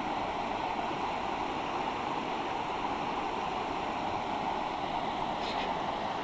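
Shallow river running steadily over a cobble and gravel bed.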